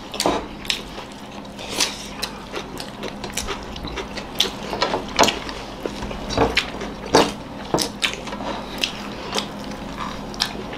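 People eating with their hands: irregular chewing and mouth smacks, with small clicks of fingers and food against plates.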